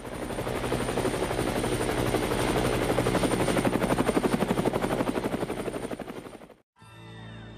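Helicopter rotor blades chopping in a rapid, even beat, swelling to their loudest about four seconds in, then fading and cutting off about six and a half seconds in. Soft chiming music starts just after.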